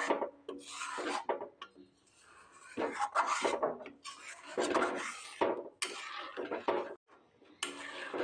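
Flat metal spatula scraping and stirring thick peanut milk around a metal kadai, in irregular rasping strokes about once a second.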